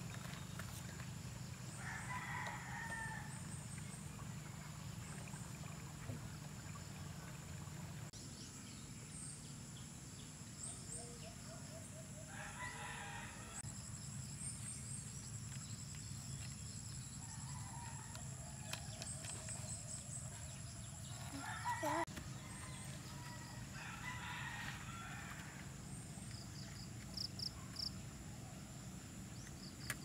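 Roosters crowing several times, each crow lasting about a second, over a steady low hum.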